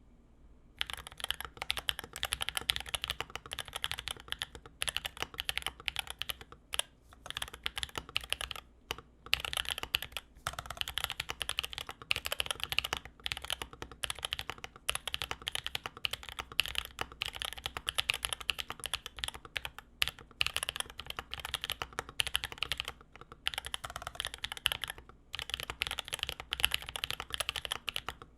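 Mechanical keyboard with Holy Panda 67g tactile switches and PBT keycaps being typed on in continuous fast bursts of keystrokes, with short pauses between runs.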